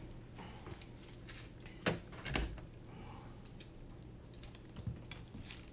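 Scissors snipping open a small plastic parts bag: two sharp snips about two seconds in, then fainter clicks and plastic rustling.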